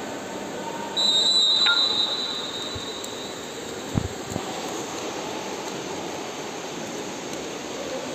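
A single loud, steady, high-pitched whistle blast about a second in, echoing and dying away in the pool hall, over the hall's steady background noise. A short dull thump comes about four seconds in.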